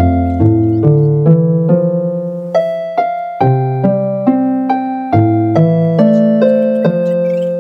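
Background music: a gentle piano melody with notes struck at a steady pace, each ringing and fading.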